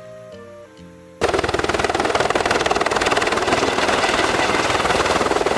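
Helicopter rotor sound, a loud, rapid chopping clatter, starts suddenly about a second in and replaces the light children's music.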